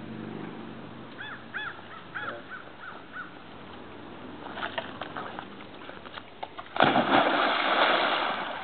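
A dog splashing into water after a cliff jump: a sudden loud splash near the end that dies away over about a second and a half. It follows a run of short high calls a second or two in.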